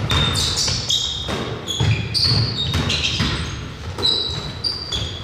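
Basketball play on an indoor court: sneakers squeaking on the floor again and again, over the ball bouncing in irregular thuds.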